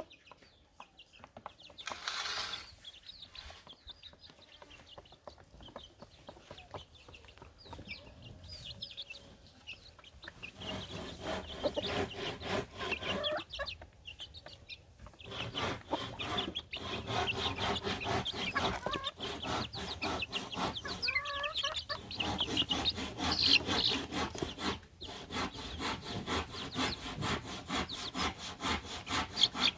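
Rhythmic back-and-forth rasping strokes of a hand tool working wood, starting about ten seconds in and carrying on with short pauses. Before that, chickens cluck.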